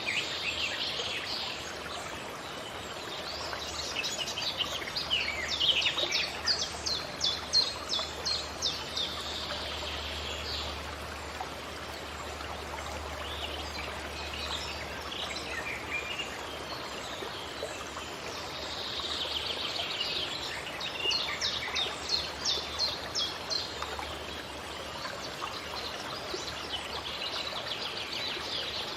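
Forest ambience: several birds singing over a steady background hiss, with two runs of rapid, evenly repeated high notes, each a few seconds long.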